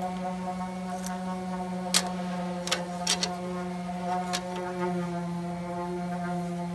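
A steady machine hum with a constant pitch, over which come several sharp metallic clicks and taps between about one and four and a half seconds in, as a steel strap and a tape measure are handled and set down on the tool table.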